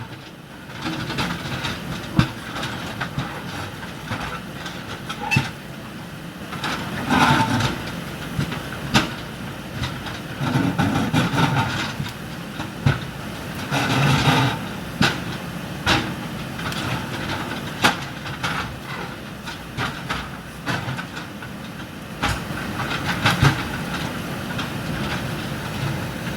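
Backhoe loader working: engine running under irregular clanking and knocking of metal and rubble, louder in a few rough stretches.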